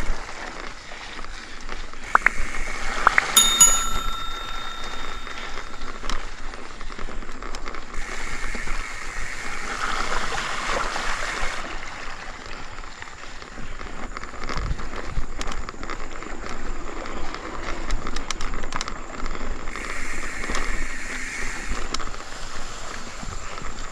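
Mountain bike rolling along a dirt singletrack: steady tyre noise with scattered clicks and rattles from the bike. A single bell-like ring comes about three seconds in and dies away over some two seconds.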